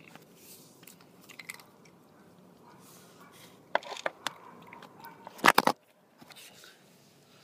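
A cat chewing and crunching food right at the microphone, in scattered clicks. About five and a half seconds in comes a burst of loud knocks and rubbing as the cat's furry body bumps against the phone.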